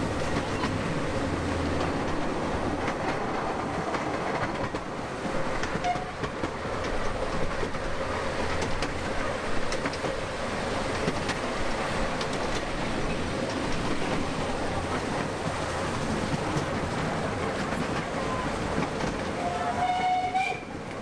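Miniature park railway heard from an open carriage: the steady rumble and clickety-clack of its wheels running on the narrow-gauge track. A short, clear signal tone from a train sounds near the end.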